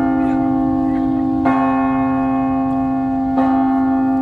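Anglican cathedral church bell tolling the noon hour. One bell is struck about every two seconds, twice here, and each stroke rings on into the next.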